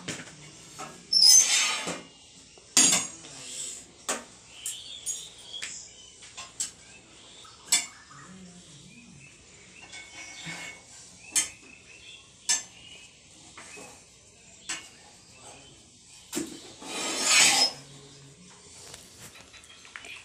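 Kitchen clatter while rotis are rolled: irregular knocks and clinks of steel vessels and a wooden rolling pin and board. Two longer, louder rushing noises stand out, one about a second in and one a few seconds before the end.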